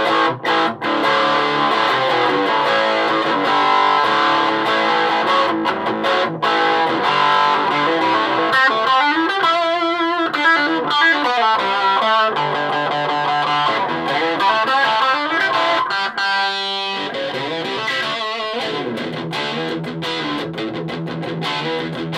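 Electric guitar played through a Donner 5 W mini practice amplifier turned up full with its distortion channel on. Heavily distorted chords and lead lines, with bent, wavering held notes about nine seconds in and again around sixteen seconds.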